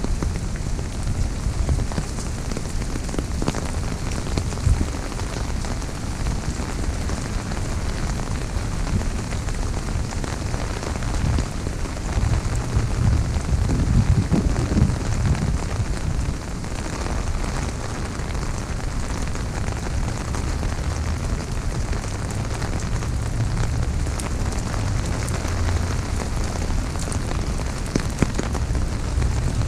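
Heavy, steady rain falling on an umbrella overhead: a dense, even crackle of drops striking the canopy, with a low rumble underneath that swells for a few seconds around the middle.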